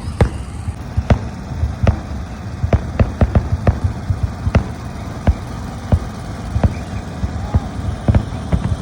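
Fireworks going off in an irregular run of sharp bangs, about one to three a second, over a steady low rumble.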